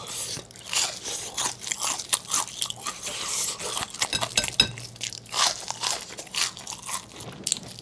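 Close-miked chewing of crispy deep-fried battered shrimp: irregular crunching bites throughout.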